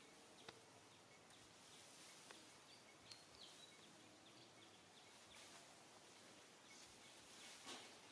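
Near silence: faint outdoor ambience with scattered faint high chirps and a few soft clicks, and a brief rustle near the end.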